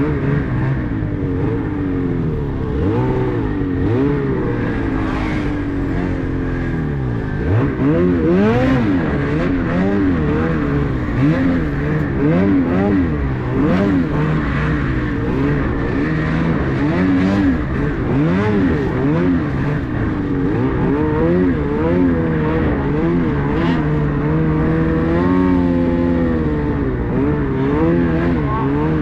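Ski-Doo 850 two-stroke snowmobile engine revving up and down constantly as the sled is ridden through deep powder, the revs dropping sharply about seven seconds in and climbing straight back.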